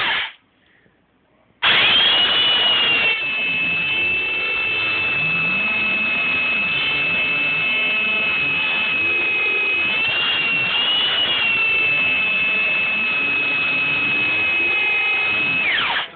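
Evolution Mini electric belt sander with an 80-grit belt, running under load while sanding wood. A short run winds down at the start, then after about a second and a half of quiet the motor starts again with a high, steady whine. It runs on with a slight wavering as the load changes, then winds down near the end.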